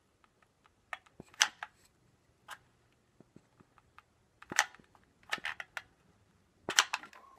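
A hot glue gun being worked to dab glue onto a scrap of drywall: a run of sharp clicks and taps at irregular intervals. The loudest come about a second and a half in, at about four and a half seconds, and near the end.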